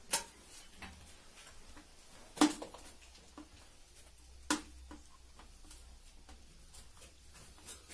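Plastic water-pipe fittings handled and fitted against a brick wall, giving scattered light clicks and knocks; the sharpest knock comes about two and a half seconds in, another about two seconds later.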